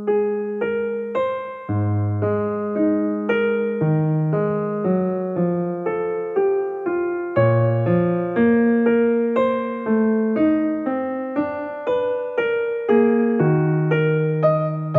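Background piano music: a steady run of notes, each struck and dying away.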